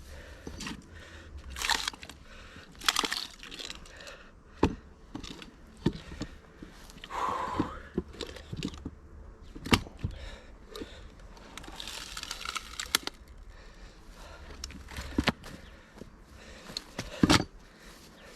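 Repeated heavy strikes from a splitting maul and sledge hammer on a large round of wood, about nine blows a second or two apart, with the wood cracking as it splits.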